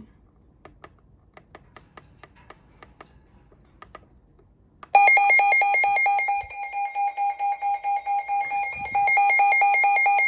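Midland WR120 NOAA weather radio sounding its alert siren on test: an electronic two-tone warble, rapidly alternating between two pitches, that starts suddenly and loud about five seconds in and pulses for a couple of seconds midway. Before it there are only a few light clicks.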